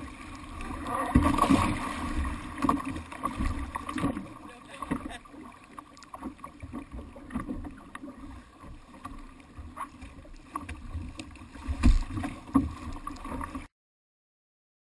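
Jet ski running at speed, heard through a camera mounted on the craft: a steady engine drone under rushing water and wind, with repeated thumps as it rides over the chop. The sound cuts off abruptly near the end.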